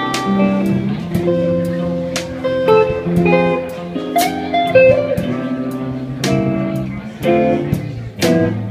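Live jazzy blues band playing: electric guitar lines and chords over a drum kit, with regular drum and cymbal strikes.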